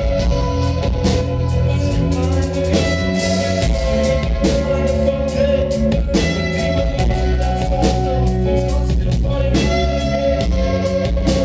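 Live rock band playing an instrumental passage: electric guitars and drum kit at full volume, heard through an audience recording.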